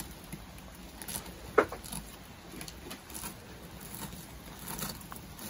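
Fillet knife cutting a salmon's side off along the spine: faint wet slicing and scraping with small clicks, and one short sharp click about a second and a half in.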